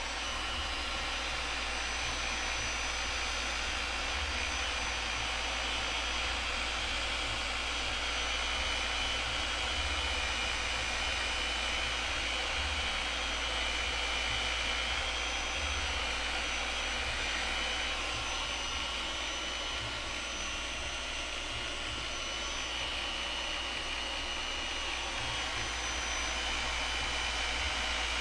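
Random orbital sander running steadily with a high whine while buffing the excess finish off small wooden box panels held against its pad.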